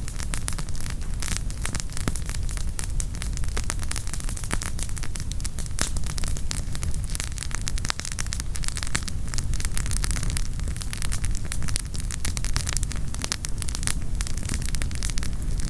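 Wood campfire crackling: a dense, continuous run of small pops and snaps from burning firewood over a low steady rumble.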